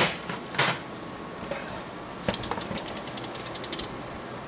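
IGT slot machine's steel main door slammed shut, two loud clanks in the first second, then a click and a run of quick light metallic clicks from the latch and door as it is opened again, the latch being tested for alignment.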